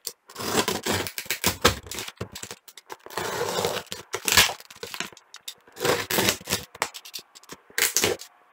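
Snap-off utility knife slitting packing tape and cardboard on a shipping box, with tape and paper ripping away in irregular scraping tears.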